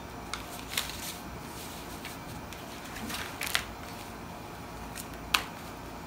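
A few light clicks and taps of a clear plastic French curve ruler and marker being handled on pattern paper, with a brief paper rustle around the middle; the sharpest click comes near the end.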